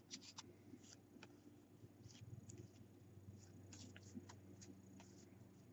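Faint, scattered soft clicks and rustles of trading cards being flipped through by hand, over near-silent room tone.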